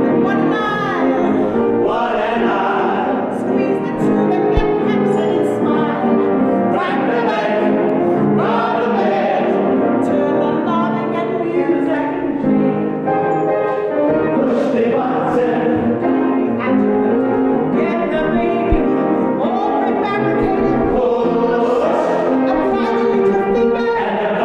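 Ensemble of voices singing a Broadway show tune together with musical accompaniment.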